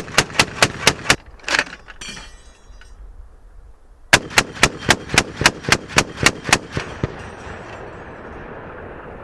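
M2 .50 caliber heavy machine gun firing two bursts: about six shots, then after a pause of roughly three seconds about ten more at an even pace, with the reports echoing on after the second burst.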